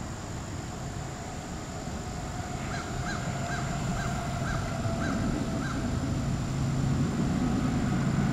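A bird calling in a run of short, arched calls, about two a second, over the low rumble of an approaching freight train that grows louder in the second half.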